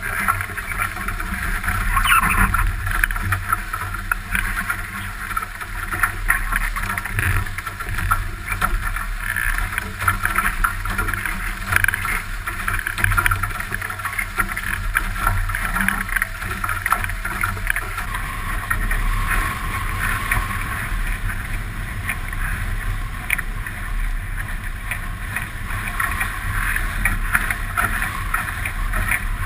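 Water rushing and splashing along the hulls of an F18 sailing catamaran under way, with frequent short spray hits. A steady wind rumble sits on the microphone underneath.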